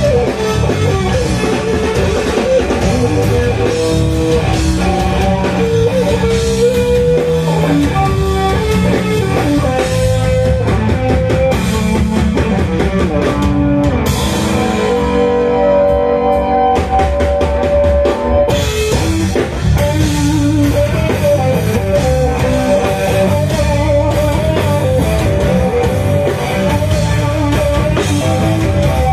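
Live rock band playing an instrumental passage: electric guitar lines over drums and bass guitar. The band thins out for a few seconds about halfway through, then comes back in full.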